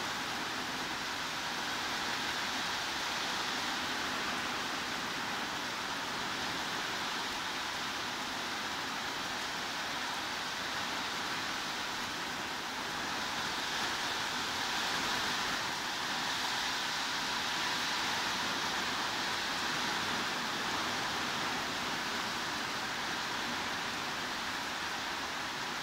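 Steady heavy rainfall, an even hiss with no individual drops or thunder standing out.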